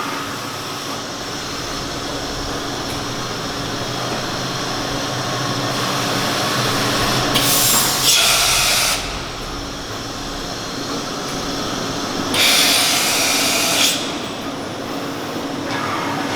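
Matsuura MC-660VG CNC vertical machining center running with a steady mechanical hum and whine. Two loud hissing bursts of about a second and a half each come about seven seconds in and again about twelve seconds in.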